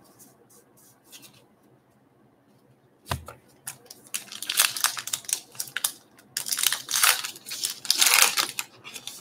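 Baseball card pack wrapper being torn open and crinkled by hand, in uneven bursts of tearing and rustling from about four seconds in. A single light knock on the wooden table comes just before.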